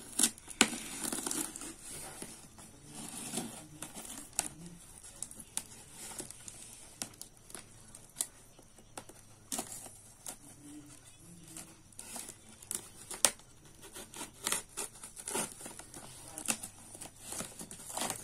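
Packing tape being picked at and torn off a cardboard box, ripping and crinkling, with many sharp irregular snaps and taps on the cardboard.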